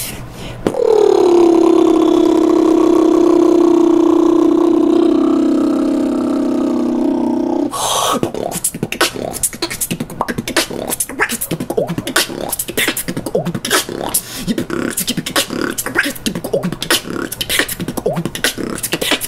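Solo beatboxing. It opens with a long, pitched vocal note that slides down and then holds for about seven seconds, and breaks about eight seconds in into a fast percussive beat of mouth-made hits and clicks.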